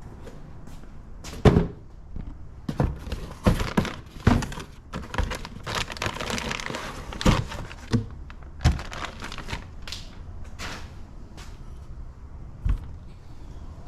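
Cardboard box and packaging being handled and opened: a series of knocks and thunks, the loudest about a second and a half in, with a stretch of crinkling and rustling in the middle.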